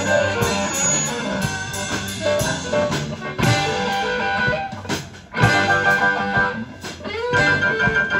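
Rock 'n' roll band playing, led by electric guitar over bass and drums, with a brief drop in the music about five seconds in.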